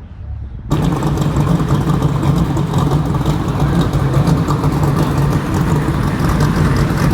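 A car engine running steadily at idle, with a strong low hum. It comes in abruptly under a second in.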